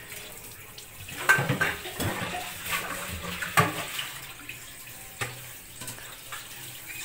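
Tap water running and splashing in a metal cooking pot as it is rinsed in a sink, with a few knocks of the pot against the sink.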